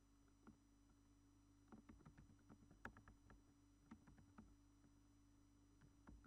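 Faint computer keyboard typing: irregular keystroke clicks, mostly from about two to four and a half seconds in and again near the end, over a faint steady electrical hum.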